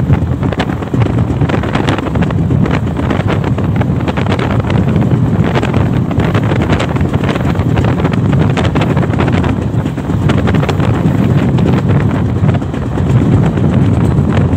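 Steady running noise of a moving passenger train heard on board, wheels rumbling on the rails, with wind rushing loudly over the microphone.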